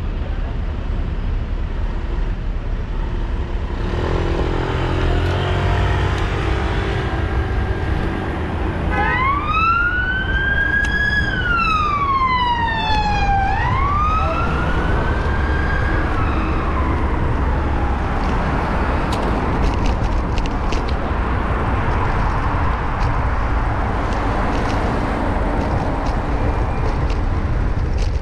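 An emergency vehicle's siren wails, its pitch sweeping slowly up and down twice, starting about nine seconds in and fading out about halfway through. Under it runs steady traffic and wind rumble on a bicycle-mounted camera.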